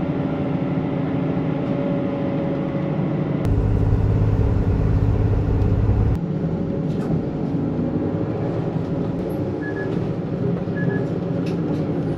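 Route bus engine and road noise heard from inside the cabin while the bus is driving, a steady hum. A deeper, louder rumble comes in about three and a half seconds in and stops abruptly about two and a half seconds later.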